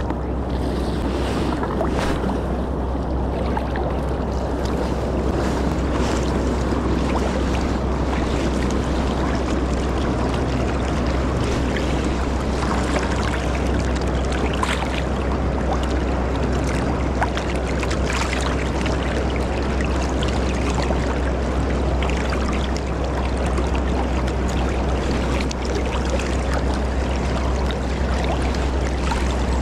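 Wind rumbling on the microphone over the steady wash and lapping of a choppy river.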